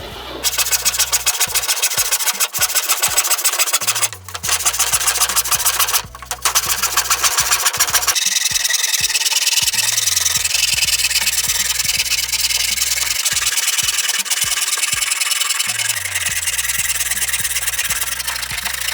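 Hand tool cutting wood with continuous strokes, over background music with a steady beat and a bass line that changes pitch every few seconds.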